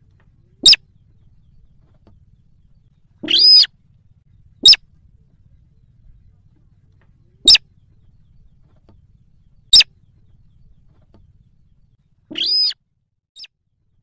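Slaty-breasted rail calls: seven sharp single notes at irregular gaps of one to three seconds, most very brief and high-pitched, two of them longer and harsher.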